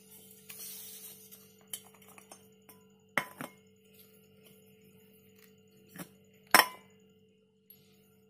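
Metal clinks and knocks from an empty freon can being unscrewed from its charging valve and hose, with a short hiss about half a second in. The sharpest clank comes about six and a half seconds in.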